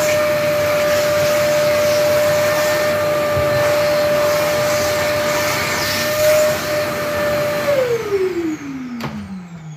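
Kärcher wet-and-dry vacuum cleaner running with a steady whine as its hose sucks up putty debris along the base of the wall. About eight seconds in it is switched off and the motor winds down, its whine falling steadily in pitch, with a sharp click about a second later.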